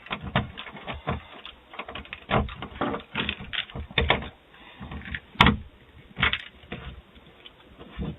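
An irregular series of sharp taps and knocks, roughly two or three a second, with one louder crack about five and a half seconds in.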